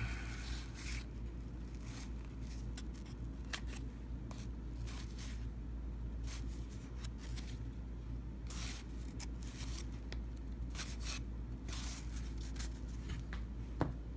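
Cardboard trading cards handled and sliding against one another, with irregular short flicks and scrapes over a low steady hum.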